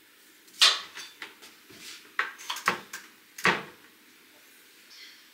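A string of about seven short, sharp knocks and clacks over three seconds, the loudest a little over half a second in and about three and a half seconds in.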